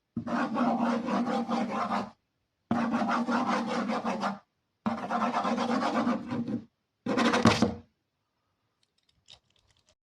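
Rough rasping scrape in four bursts, the first three about two seconds each and the last one short, followed by a faint click near the end.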